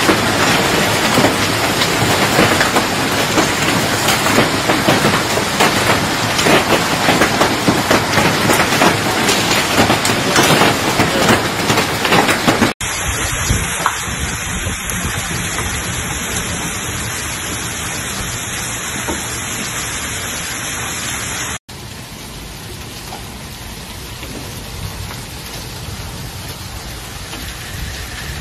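Hailstorm: hailstones pelting down and striking the ground and surfaces, a dense patter thick with sharp ticks. It drops abruptly to a softer patter about thirteen seconds in, and softer again about twenty-two seconds in.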